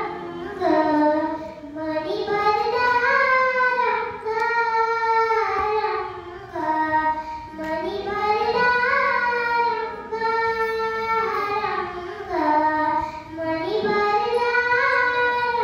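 A young girl singing a Marathi devotional song (bhajan-style pada) from a book, holding long notes that slide up and down with short breaths between phrases.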